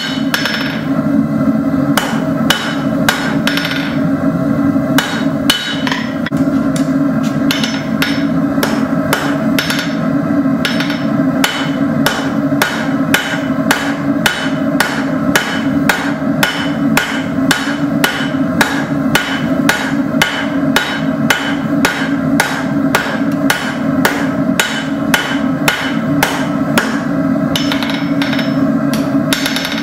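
Hand hammer striking a hot 5/16 in steel rod on an anvil in a steady rhythm, about two to three blows a second with a few brief pauses. Underneath runs a steady roar from the lit forge.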